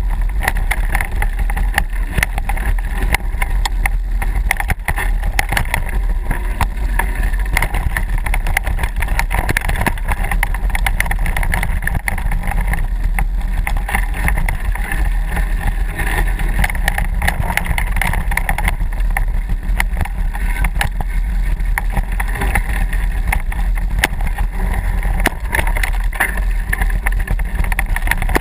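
Mountain bike ridden fast along a dirt forest singletrack: steady wind rumble on the microphone with constant rattling and knocking from the bike jolting over the trail.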